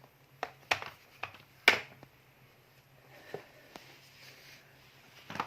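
Several sharp plastic knocks and clicks, the loudest a little under two seconds in, then soft rustling and one more knock near the end, as the plastic body of a cordless power tool and its parts are handled.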